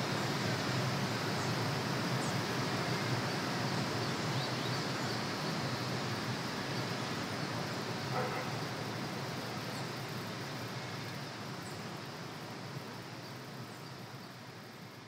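Steady outdoor ambience, an even rushing noise with a few faint high chirps, fading out gradually.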